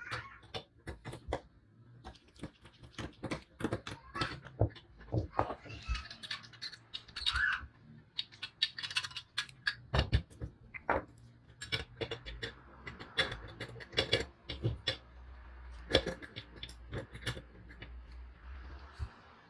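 Small metal parts of a vintage balance scale clicking and clinking irregularly as they are handled and fitted together during reassembly.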